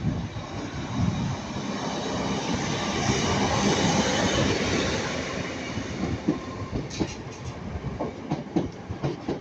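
A Northern Class 323 electric multiple unit passing at speed: the rolling noise swells to a peak about four seconds in and then dies away. A few sharp wheel clacks over the rail joints follow near the end.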